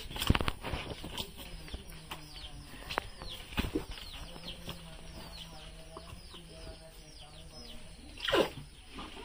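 Chickens peeping and clucking: a steady run of short, high, falling cheeps, several a second, with a louder falling squawk near the end. A sharp knock right at the start is the loudest sound, with a second, softer knock a little past the middle.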